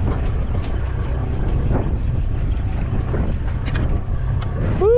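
Steady low rumble of a boat's engine running, with wind buffeting the microphone.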